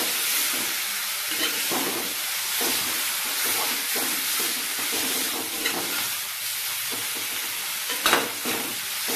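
Mutton pieces sizzling in an aluminium kadai as a steel spoon stirs them, scraping the pan in repeated strokes, with a sharper knock near the end.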